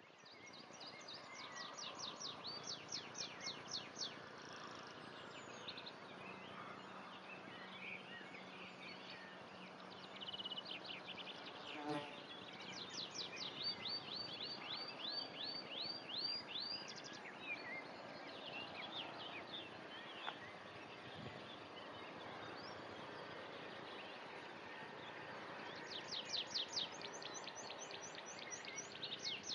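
Outdoor ambience with three bouts of rapid high chirps from a small animal, each a run of quick repeated notes lasting a few seconds: near the start, in the middle, and near the end. A faint steady outdoor hiss lies under them.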